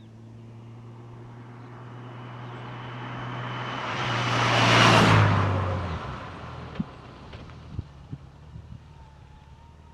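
A motor vehicle approaching and passing close by, loudest about five seconds in, its engine note dropping as it goes past and then fading. A few short clicks follow.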